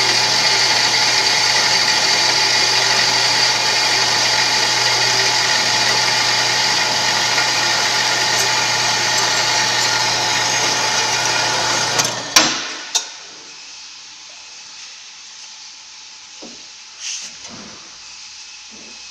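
A 7" x 12" metal-cutting band saw running steadily with a hum and the blade's high, even noise. About twelve seconds in it stops with a few sharp clanks, leaving only a few soft knocks.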